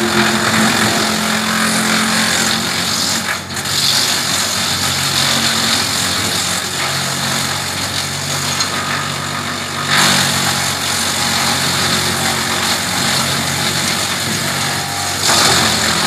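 Tractor-mounted Hasatsan DP 700 wood chipper running off a tractor, chewing branches into chips over the steady drone of the tractor engine. The chipping noise dips briefly about three and a half seconds in and is heaviest at the start and again from about ten seconds on.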